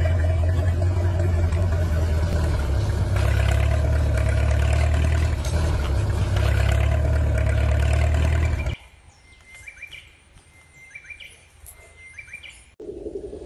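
A radio-controlled toy tractor runs with a steady low mechanical hum that cuts off abruptly about nine seconds in. A few faint bird chirps follow in the quiet.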